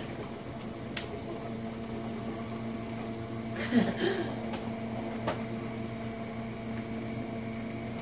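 Jenn-Air dishwasher running its rinse-only cycle: a steady motor hum, with another tone joining about a second and a half in, and a few faint clicks.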